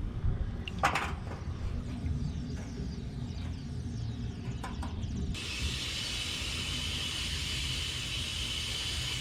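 A few clicks and knocks over a low rumble, then about five seconds in a steady hiss of compressed air starts suddenly and holds. This fits air being let into the dented two-stroke expansion chamber to pressurise it.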